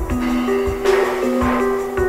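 Instrumental music: held melody notes stepping in pitch over a steady drum beat, with a sharp crash-like hit about a second in.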